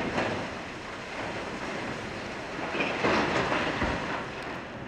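Blasted rock pouring from a Volvo L260H wheel loader's side dump bucket into a steel tipper trailer: a long rush of falling rock on steel that eases and then swells again about three seconds in.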